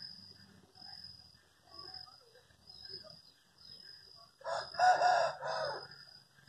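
A rooster crowing once, loud, starting about four and a half seconds in and lasting about a second and a half.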